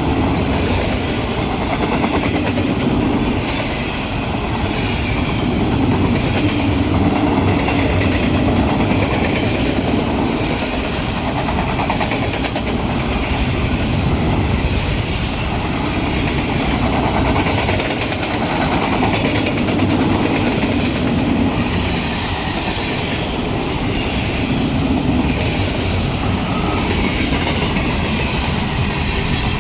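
Freight train rolling steadily past on the rails: a continuous rumble and clatter of wheels on track that swells and eases slightly over about half a minute.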